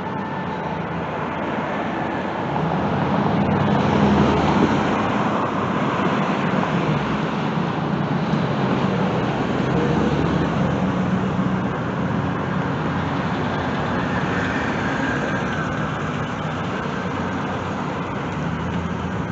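Road traffic: cars and vans driving past on the street, the noise swelling as each one passes, loudest about four seconds in and again around ten seconds.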